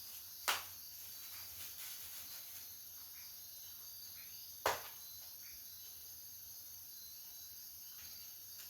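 Two sharp clicks from the Blu-ray set's packaging being handled, one about half a second in and a louder one near the middle, over a steady faint high hiss.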